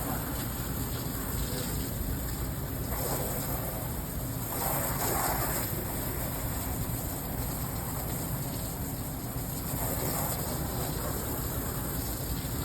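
Water from a hose spraying onto an air conditioner's dirty condenser coil, in a few spells of hiss, the strongest about five seconds in, over a steady low rumble.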